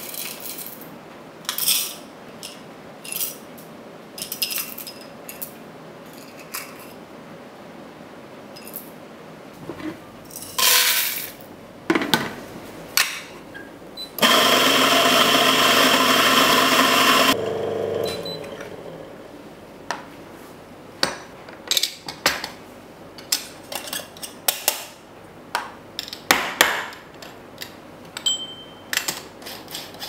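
Fiorenzato F64E 64 mm flat-burr coffee grinder running for about three seconds, grinding into a steel dosing cup, then spinning down over about a second. Before and after it come scattered small clicks and clinks of the metal dosing cup being handled.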